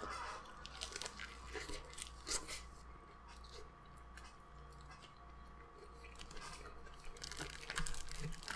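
A person biting and chewing a KFC Zinger Taco, a hard taco shell wrapped in a soft tortilla with fried chicken: crisp crunches mostly in the first few seconds, quieter chewing in the middle, and more crunching near the end.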